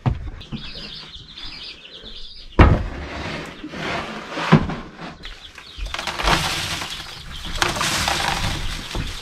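A bird chirping in quick warbling notes, then a sharp bang about two and a half seconds in, like a door shutting, and a second knock. Then a few seconds of rustling as a plastic tote brooder is handled and pine shavings shift in it.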